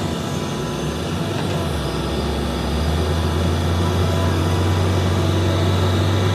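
Heavy excavator diesel engine running, likely the ZAXIS 350H's. About two seconds in it revs up, the low drone rising in pitch and getting louder, and then holds steady under load.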